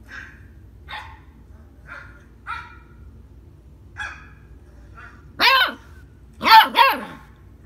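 A dog barking: one bark about five and a half seconds in, then two quick barks a second later, after a few faint short sounds.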